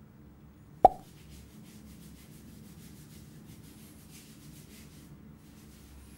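Hands scrubbing lather through wet hair: quick rhythmic rubbing that starts about a second in and runs for about four seconds. Just before it comes a single sharp pop, the loudest sound.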